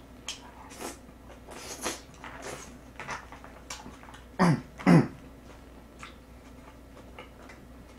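Soft clicks and scrapes of chopsticks scooping rice from a bowl. About halfway through come two short, loud voice sounds from the eater, each falling in pitch.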